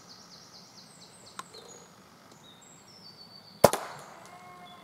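Silenced Theoben Rapid air rifle fired once, about three and a half seconds in: a single sharp crack with a short ring-out, the shot that hits the squirrel. A bird chirps quickly in the first second.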